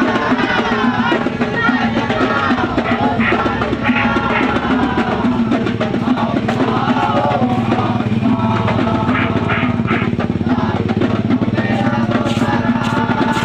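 Music with a steady drum beat and a wavering melody line.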